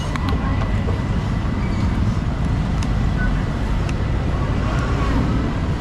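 Steady low rumble of street-market background noise, with a few faint clinks of metal utensils and snatches of distant voices.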